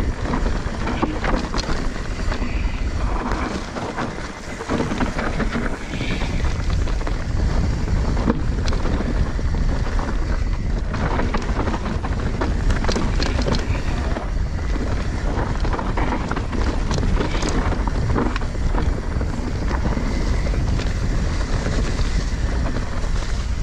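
Mountain bike riding fast down a dirt trail: wind buffeting the camera microphone, with tyres rolling on the ground and frequent knocks and rattles from the bike over bumps.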